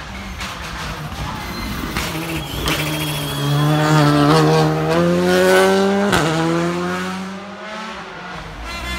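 Rally car accelerating out of a hairpin, its engine note climbing steadily and loudest between about four and six seconds in. A sharp crack comes at about six seconds, then the engine drops to a lower note and fades as the car pulls away.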